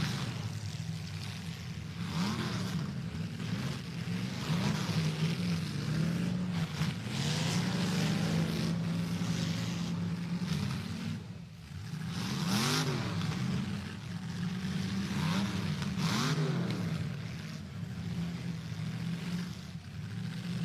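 Demolition derby car engines revving, with about five surges where the pitch climbs and falls back, and a short lull about eleven seconds in. This fits a damaged derby car straining to drive forward against locking wheels.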